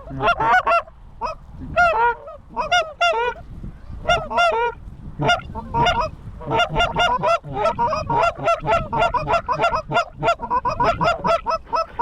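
Loud goose honks and clucks, a few spaced honks at first, then a fast unbroken run of them from about halfway through, as geese are called in over a decoy spread.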